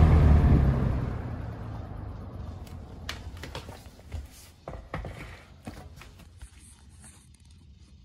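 Lakewood P-23 20-inch box fan switched off: its motor hum fades away over the first couple of seconds as the blades coast down. A few light clicks and knocks follow as the fan is handled.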